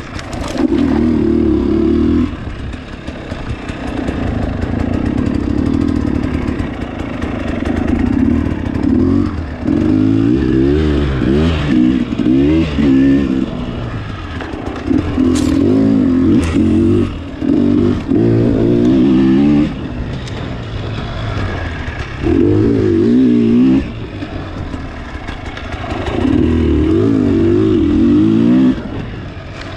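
Dirt bike engine revving in repeated bursts of throttle, each lasting a second or two, and dropping back between them as the bike is ridden along a tight trail. A couple of sharp clacks come about halfway through.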